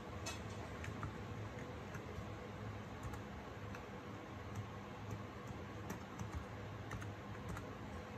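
Typing on a Razer Huntsman Mini 60% keyboard with linear optical red switches: quiet, irregular keystrokes, a scattering of soft clicks.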